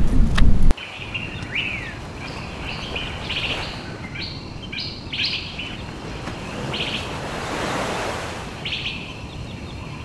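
Wind rumbling on the microphone, cut off abruptly under a second in. Then birds chirp in quick runs of short, high calls.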